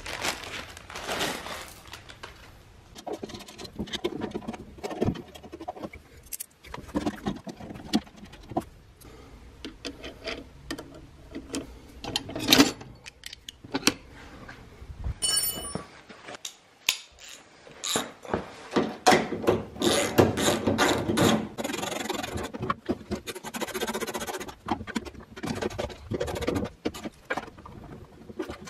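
Caster-mounting hardware and hand tools being handled while bolts are fitted to a steel tool cabinet: clinks of bolts and washers, tool clatter and scraping, with a busy stretch of rapid clicks and rattles past the middle.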